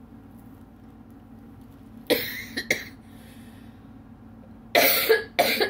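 A woman coughing: two coughs about two seconds in, then two more near the end. The cough comes from the viral illness she is still fighting.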